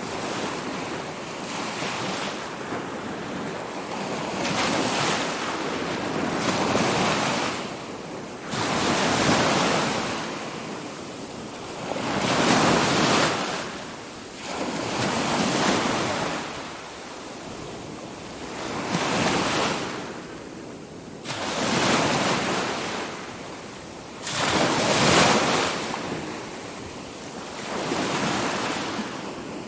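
Ocean surf: waves breaking one after another, each swelling and fading over about three seconds.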